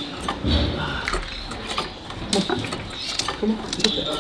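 Show-hall bustle: canaries chirping in show cages, short high chirps scattered throughout, over murmured voices and small clicks and clinks.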